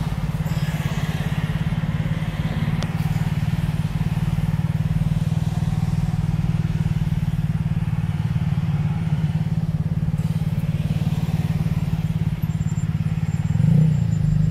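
Steady low engine hum heard from inside a car cabin in slow traffic, the engine note rising and wavering near the end as the vehicle pulls ahead.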